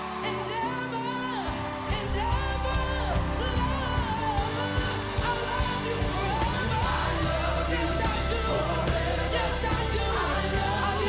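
Live gospel performance: a male singer sings and ad-libs into a microphone over a full band. Heavy bass and drums come in about a second and a half in, driving an upbeat groove.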